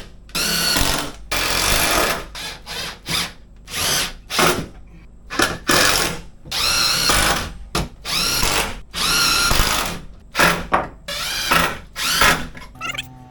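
Power drill running in many short bursts of varying length, its motor whine rising as it spins up each time, as when driving or backing out screws.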